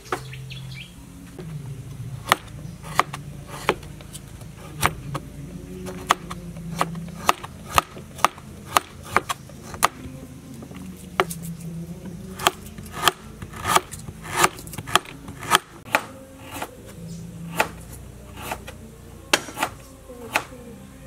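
Cleaver chopping on a wooden cutting board: sharp knocks at an uneven pace of one or two a second, starting about two seconds in.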